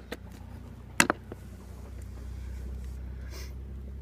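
Two sharp knocks about a second apart, over a steady low rumble, with a brief hiss near the end.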